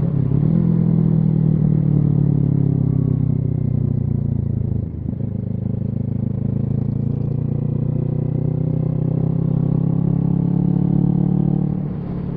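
Kawasaki Z650's parallel-twin engine running through a Yoshimura Alpha aftermarket exhaust while riding. The revs dip briefly about five seconds in, then climb steadily, and ease off near the end.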